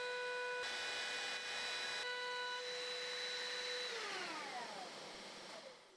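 Table-mounted router running at full speed with a steady high whine over the hiss of dust extraction; a little under four seconds in it is switched off and the whine falls in pitch and fades as the bit spins down.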